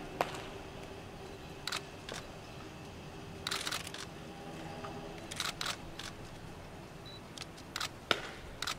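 Camera shutters clicking, single shots and short rapid bursts, at a press photo call, over a low quiet background.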